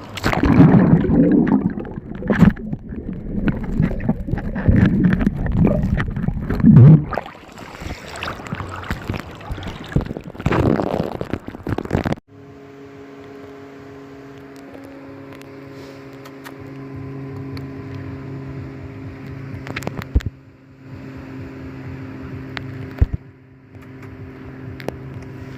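Loud gusty rushing of wind and sea water close to the microphone, with scattered knocks, for about twelve seconds. After an abrupt cut, a steady engine hum with a few clicks.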